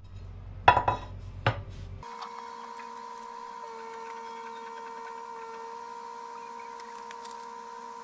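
Two sharp knocks as a plate is set down on a kitchen countertop. Then a steady hum at two pitches, wavering slightly, runs on.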